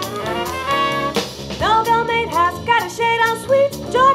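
Swing jazz band music: an instrumental passage led by brass horns, with bending, sliding notes from about a second and a half in.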